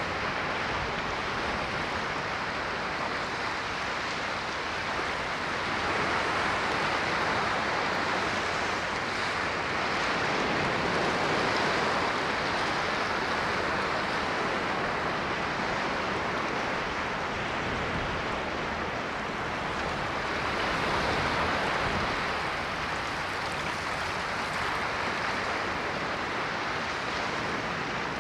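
Ocean waves washing onto a shore, a steady hiss of surf that swells and ebbs gently every several seconds.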